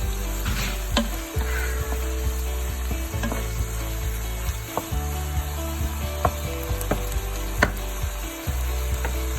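Marinated chicken pieces frying in a pan with a steady sizzle, stirred with a utensil that clicks sharply against the pan a few times.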